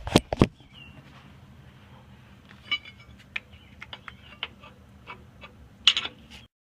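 Metal clicks and clinks of a lug wrench working a bottle jack to raise a car: a couple of sharp knocks at the start, then irregular light ticks, with a louder clatter near the end before the sound cuts off suddenly.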